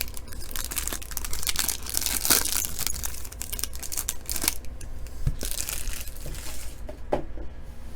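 Crinkling and tearing of trading-card pack packaging being handled and opened, with many small crackles and clicks. It thins out after about five seconds.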